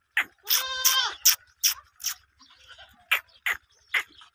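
A goat bleats once: a single held, high call of under a second. Short, sharp clicking sounds repeat about two to three times a second throughout.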